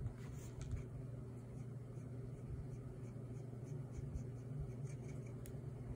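Ink pen scratching on paper in many faint short strokes as black areas of a drawing are inked in, over a steady low hum.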